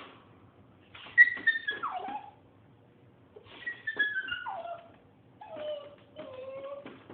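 A dog whining in three long, high calls, each sliding downward in pitch; the third is lower and flatter.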